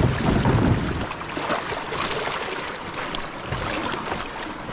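Shallow river water running over rocks, with a low rumble of wind on the microphone for about the first second and a few light splashes and knocks.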